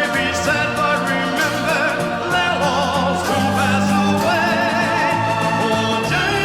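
Background music: a song with a singing voice holding wavering notes over steady bass notes.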